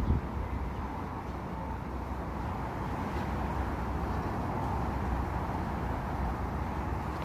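Steady outdoor street noise of traffic, with low wind rumble on the microphone and a brief thump at the start.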